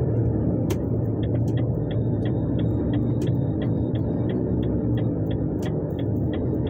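Vehicle engine and road rumble heard from inside the cab, with the turn-signal indicator ticking about three times a second from a little over a second in, as the vehicle turns at a junction.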